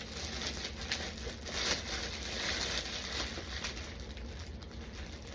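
Plastic packaging rustling and crinkling as packed cosplay gloves are handled and unwrapped, with a few small clicks.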